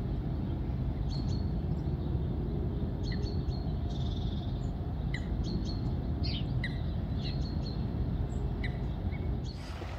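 Outdoor ambience: scattered short bird chirps and calls over a steady low rumble of background noise.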